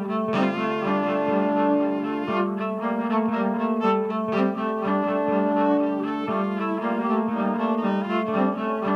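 Cello played with the bow, several sustained notes overlapping at once, with frequent note changes.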